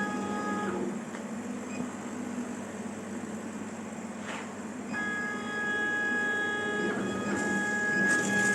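KAMACH 6090 CO2 laser cutter running, the stepper motors driving its head giving a steady whine of several tones that stops about a second in and starts again about five seconds in, over a constant low hum.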